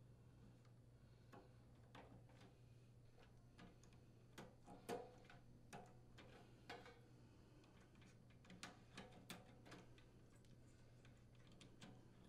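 Faint, scattered small clicks and ticks of insulated spade connectors and wires being handled and pushed onto the terminals of a furnace control board, a few close together around the middle, over a low steady hum.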